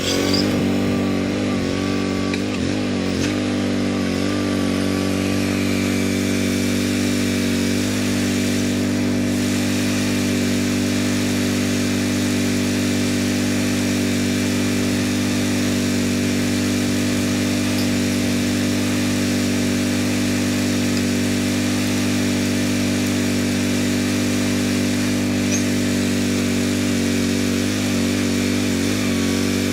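Boxer 320 mini skid steer's engine running loud and steady. Its speed shifts a few times in the first several seconds, then holds even.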